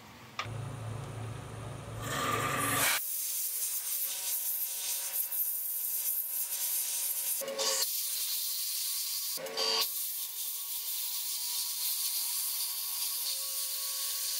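A wood lathe runs with a low hum, then about three seconds in a bit fed from the tailstock drill chuck bores into a spinning snakewood workpiece: a steady high scraping hiss over faint steady motor tones, broken off briefly twice near the middle.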